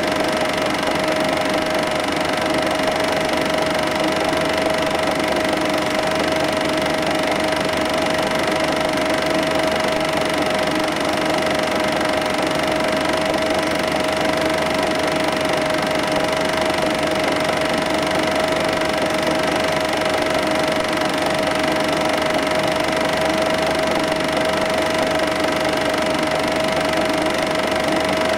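Cine film projector running, its motor giving a steady whine over the even clatter of the film transport.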